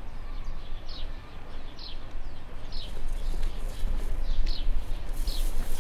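A bird chirping repeatedly, with short falling chirps about once a second, over a steady low rumble of outdoor background noise.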